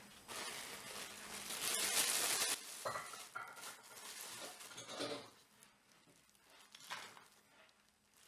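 A thin plastic bag crinkling loudly as gloved hands open it, then shelled peanuts tipped into the bag from a ceramic bowl, with a few short clinks and rattles.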